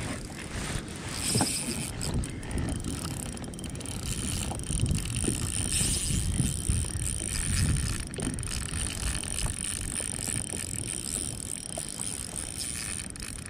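Spinning reel being wound while playing a hooked samson fish, its gears whirring steadily, over low rumbling handling noise.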